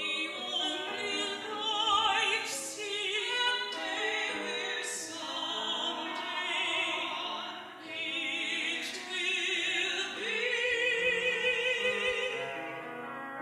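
Classical soprano singing with wide vibrato over piano, from a wobbly old cassette recording. A long held note begins about ten seconds in, and the music fades toward the end.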